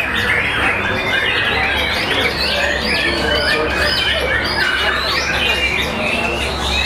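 White-rumped shamas (murai batu) singing, several birds overlapping in a dense, unbroken stream of quick whistled notes that rise and fall.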